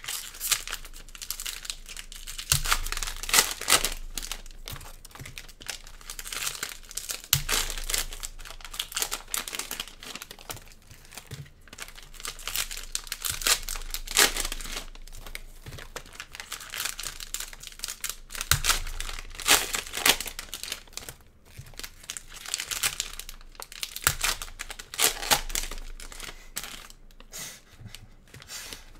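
Plastic trading-card pack wrappers crinkling and being torn open, in irregular bursts of crackly rustling as packs are opened and handled.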